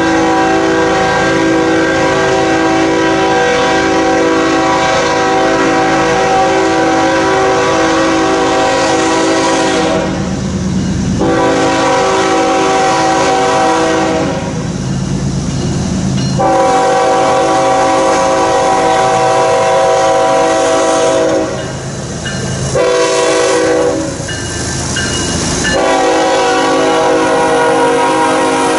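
Air horn of a Canadian National diesel locomotive leading a loaded coal train, sounding its chord in a series of long blasts with short breaks and one brief blast near the end, over the rumble of the approaching train. Near the end the loaded coal hopper cars roll close by with clacking wheels.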